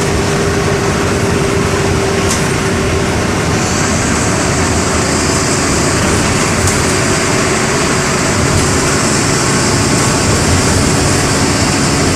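The MWM 6.12 TCE six-cylinder in-line turbodiesel (225 hp) of a Volkswagen Volksbus 17-230 EOD city bus running steadily as the bus drives. A tone from the engine fades out about three seconds in, and a steady high hiss comes in shortly after.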